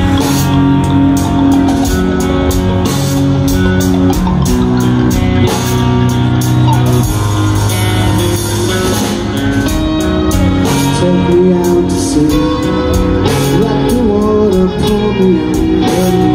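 Live rock band playing loud and steady: electric guitars, bass guitar and a drum kit with regular cymbal hits, and a man singing.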